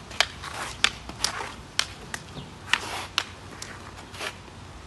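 Rattan sticks clacking together in a Kali partner striking drill: about nine sharp wooden clacks, roughly two a second.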